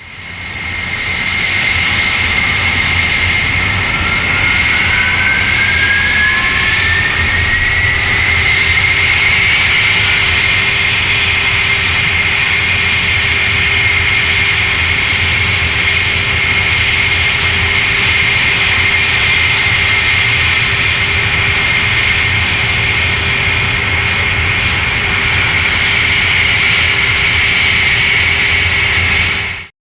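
Jet engine starting up: a high turbine whine with a dull rumble beneath. A second whine rises steadily in pitch over about five seconds as it spools up, then both hold steady at running speed. The sound cuts off suddenly near the end.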